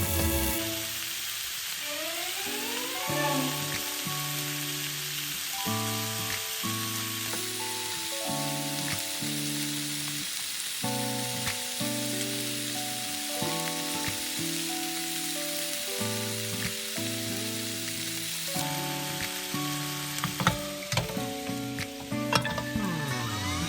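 Chicken sizzling as it fries in a frying pan, a steady hiss throughout, under background music of a simple melody of held notes.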